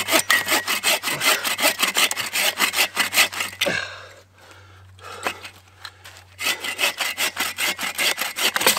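Hand saw cutting through a round of firewood log, about four or five quick back-and-forth strokes a second. The sawing stops for a couple of seconds around the middle, then starts again.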